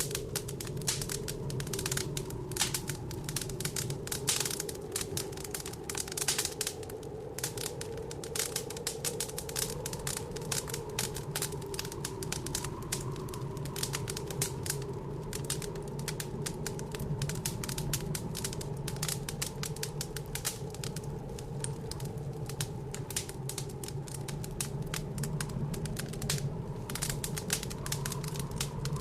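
Wood fire crackling in a fireplace, a dense irregular stream of sharp pops and snaps, over a steady low whistling howl of blizzard wind.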